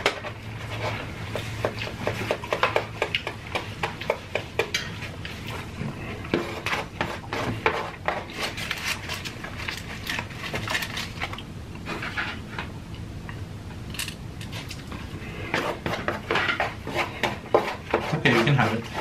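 Metal forks clicking and scraping in plastic takeout bowls, with close-up chewing of food: many short, irregular clicks.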